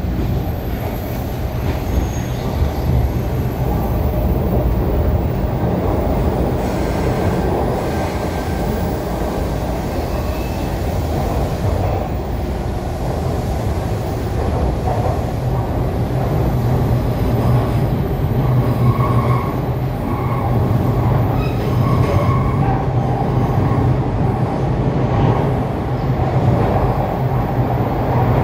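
TTC Line 2 subway train, a Bombardier T1, running between stations, heard from inside the car: a steady rumble of wheels on rails with a low motor hum that grows a little stronger partway through.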